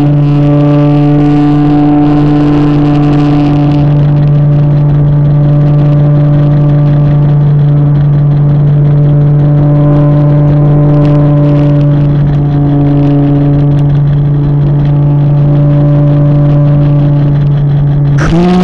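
RC model plane's motor and propeller running at steady cruise throttle, a loud even hum heard close up through the onboard camera's microphone. Near the end the pitch briefly bends up and back down with a short rush of noise.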